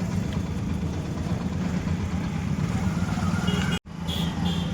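A steady low engine-like hum, like a vehicle idling. It cuts out abruptly for an instant near the end, and a few faint short high tones sound around that point.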